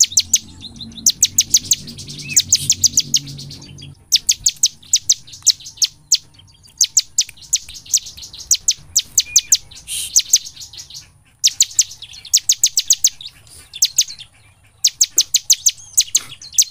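Bar-winged prinia (ciblek) singing in bouts of rapid, sharp, high chipping notes, about eight a second. Each bout lasts one to two seconds, with short pauses between bouts.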